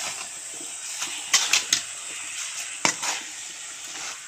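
Chicken pieces frying with onions in a large metal pan, a steady sizzle, while a metal ladle stirs them. The ladle scrapes and knocks against the pan in a quick cluster about a second and a half in and again about three seconds in.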